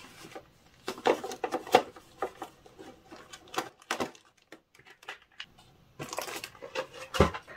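Nail-strip sample packets and a white packaging tray being handled: scattered light clicks and rustles, a denser rustle about six seconds in, and a dull thump near the end.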